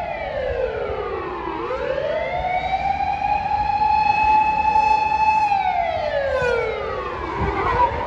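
Fire engine's siren wailing: a held high tone that slides down low and climbs back up, about a second and a half in, and slides down again near the end.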